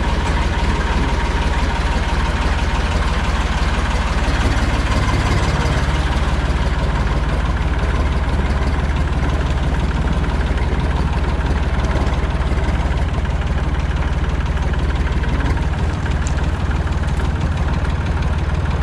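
Massey Ferguson 245 tractor engine running steadily.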